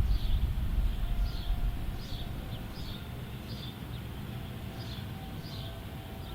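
A bird chirping over and over, short calls about every half second, against a low rumble that drops away about two seconds in.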